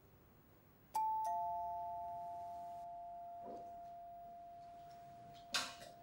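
Two-tone ding-dong doorbell chime: a higher note, then a lower one a moment later, ringing on and slowly fading. A brief sharp noise comes near the end.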